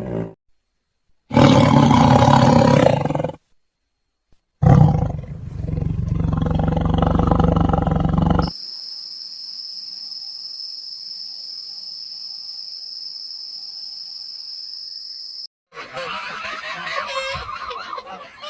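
A big cat roaring twice, the second roar longer, followed by several seconds of a steady high-pitched whine.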